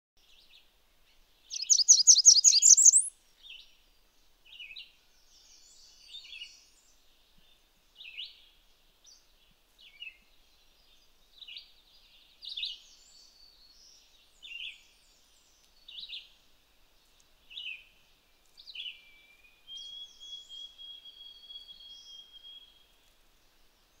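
Blackburnian warbler song: a rapid run of very high, thin notes that climbs in pitch, starting about a second and a half in. Softer short high notes follow about every second and a half, with a thin steady whistle near the end.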